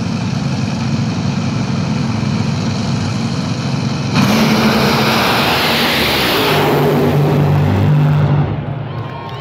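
Top Fuel dragster engines, supercharged nitromethane-burning V8s, running loudly at the starting line. About four seconds in they launch at full throttle, a sudden, much louder noise that lasts about four seconds, the length of a Top Fuel pass, and then falls away sharply.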